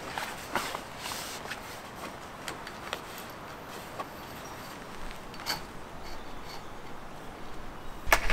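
Faint rustling and scattered light clicks of shower-tent fabric and fittings being handled, with a few footsteps. A sharper cluster of clicks comes near the end.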